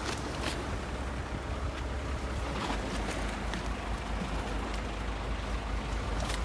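A boat on open water: a steady low rumble with wind and water noise, and a few light knocks.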